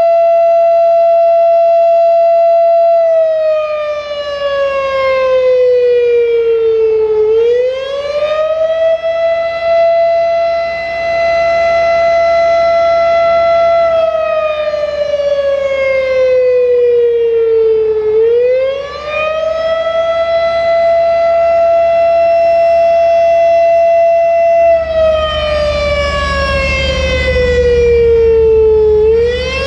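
Federal Signal Thunderbeam electromechanical outdoor warning siren, its reflector disc broken, sounding the attack signal. A steady tone sags lower over about four seconds and then quickly winds back up, three times.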